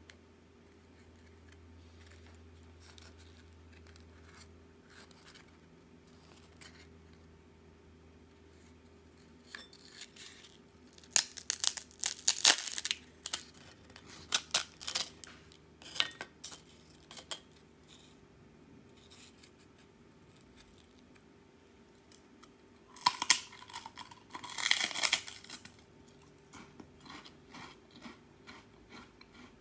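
A crisp baked wafer tray being cracked and snapped apart by hand: scattered small crackles, a burst of sharp cracks about twelve seconds in and another about twenty-four seconds in, then small crunching clicks as the pieces shift.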